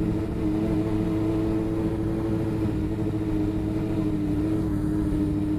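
Small motorbike's engine running at a steady cruising speed, an even drone that barely changes pitch, with wind rumbling on the microphone.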